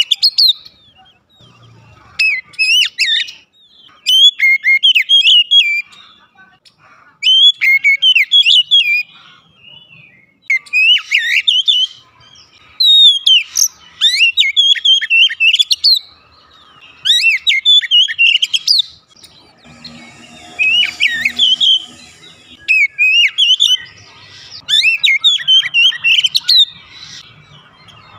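Oriental magpie-robin singing: loud, varied phrases of quick gliding whistled notes, each one to two seconds long, repeated about ten times with short pauses between.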